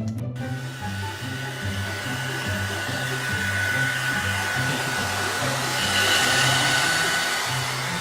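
Steady rushing air of a motorised blower such as a hair dryer, with a thin steady whine, switching on just after the start and running on. Background music with a repeating bass line plays underneath.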